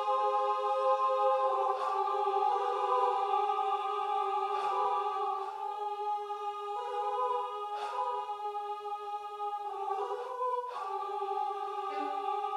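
Music: a sustained, held chord that shifts in pitch a few times, struck through by a short sharp hit about every three seconds, four hits in all.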